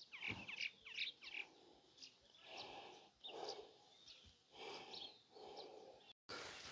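Faint birdsong: several quick chirps with downward sweeps in the first second and a half, then softer, scattered calls.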